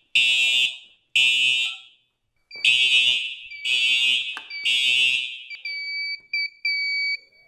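Building fire alarm horns sounding loudly in groups of three pulses with a pause, the evacuation pattern, set off by smoke from a fog machine. A little after five seconds the horns are silenced at the panel. The fire alarm panel's beeper then starts beeping, first short beeps, then longer ones.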